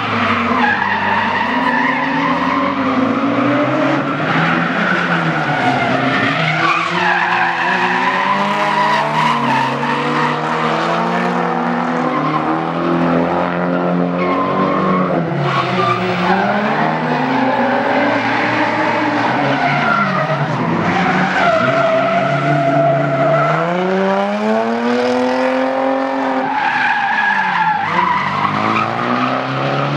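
Nissan Silvia S14 and Nissan 350Z drift cars, their engines revving up and dropping back again and again as they slide, with tyres squealing and skidding throughout.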